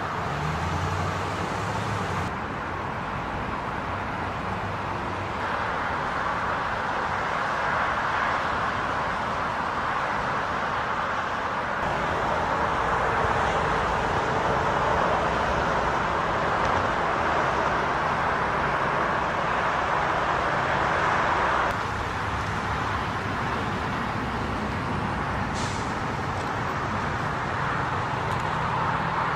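Steady hum of idling vehicle engines and road noise, stepping abruptly up or down in level a few times.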